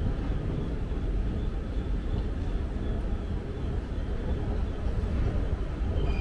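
Steady low rumble of an escalator running, with faint high tones coming and going above it.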